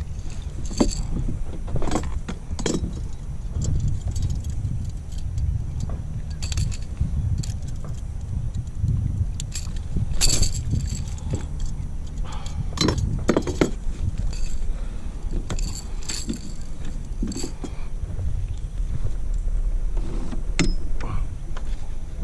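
Irregular clicks, clinks and rattles of fishing gear and the landing net as a fish is handled and unhooked in the net, over a steady low rumble.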